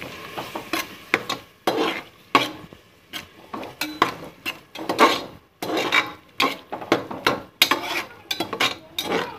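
Metal spatula scraping and knocking against the bottom of an aluminium pressure cooker while stirring chopped tomatoes sautéing in oil, in irregular strokes about two a second.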